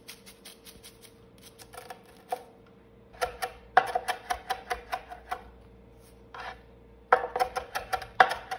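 Chef's knife chopping cilantro on a wooden cutting board: quick runs of blade taps on the board, about five or six a second, with short pauses between the runs.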